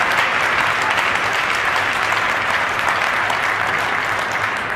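Crowd in the arena stands applauding steadily, beginning to die down near the end.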